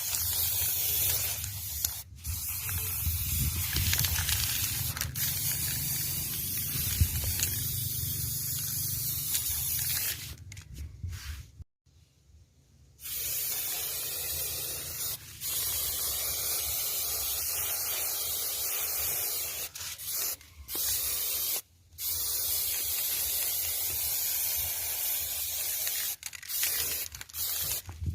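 Spray hissing in long passes that stop briefly several times, with a low hum underneath.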